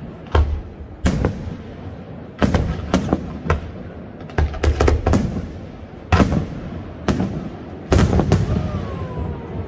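Parente Fireworks aerial firework shells bursting in about a dozen sharp booms at irregular intervals, some in quick pairs, over a low rumble. The loudest bursts come about six and eight seconds in, and the booms thin out near the end.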